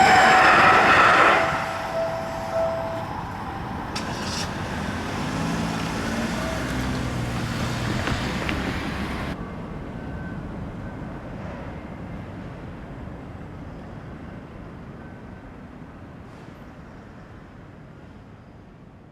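The tail of a Seibu Shinjuku Line train passing the level crossing, dying away about a second in. Then road traffic at the crossing with a large truck's diesel engine running, turning duller about halfway through and steadily fading away.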